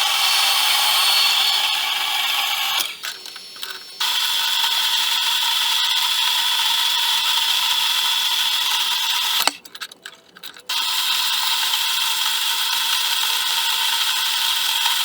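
A power tool running steadily with a high whine, cutting out abruptly twice for about a second each and starting again.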